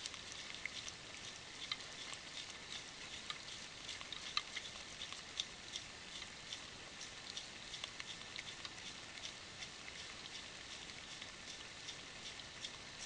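White-tailed deer licking and gnawing a mineral block close to the microphone: irregular soft clicks and taps, several a second, over a steady faint hiss.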